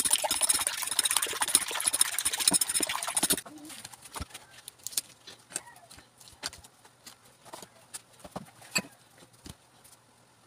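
Fork beating eggs in a bowl: a fast, continuous clatter of metal against the bowl that stops abruptly about three and a half seconds in. After that, only scattered faint taps and clicks.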